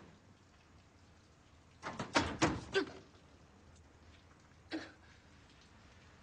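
Knocks and clatters from a small wall cabinet and its hinged door being handled: a quick run of several knocks, then a single knock a couple of seconds later.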